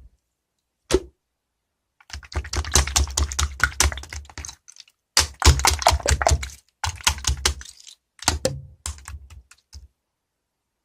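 Slime being squeezed and kneaded by hand, giving runs of rapid clicking and popping in four bursts, then falling silent near the end.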